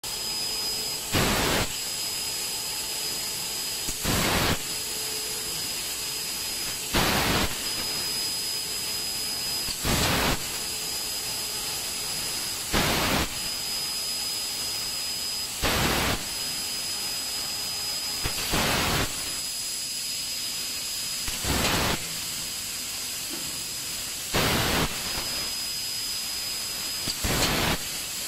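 Fiber laser tube cutting machine cutting stainless steel tube: a steady hiss with a thin high whine, broken about every three seconds by a louder half-second burst of hissing.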